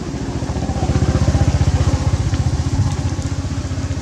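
A small engine running with a fast, even pulse, louder about a second in and then easing off a little.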